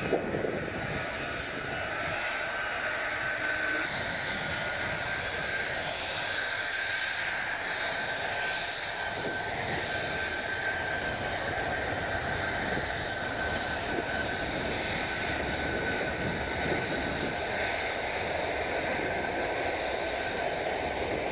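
Boeing C-17 Globemaster III's four Pratt & Whitney F117 turbofans running as the transport taxis: a steady broad jet rush with a high, held whine over it.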